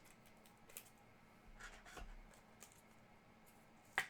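Faint rustling and scraping of trading cards being handled, with one sharp click about four seconds in.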